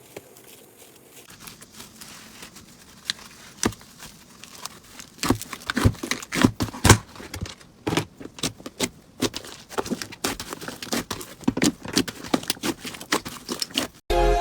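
Slime being squeezed and pressed by hand, giving sharp crackles, clicks and wet pops. It is faint at first, and the pops come thick and fast from about five seconds in.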